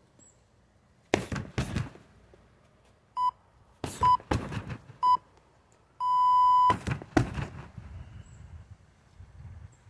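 Kicks thudding into a freestanding heavy bag, in quick clusters of two or three, three times. Between them a workout interval timer gives three short beeps about a second apart and then one longer beep, the countdown that marks the end of a round.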